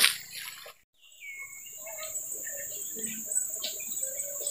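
Riverbank ambience after a brief gap: a steady high-pitched drone of insects such as crickets, with scattered faint bird chirps. A short falling whistle-like call comes about a second in.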